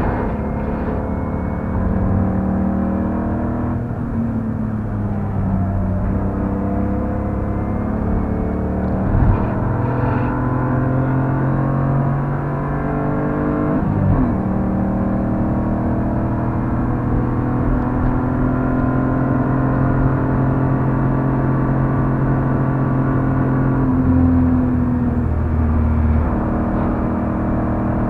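BMW E46 328i's 2.8-litre straight-six engine heard from inside the cabin under hard driving, its pitch climbing steadily as the car accelerates and dropping sharply at gear changes about 4 and 14 seconds in. Tyre and road noise run underneath.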